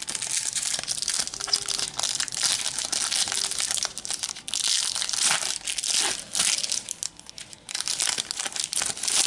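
A Panini Adrenalyn XL trading card packet is torn open by hand and its wrapper crinkled and crumpled: a dense crackling with a couple of short pauses.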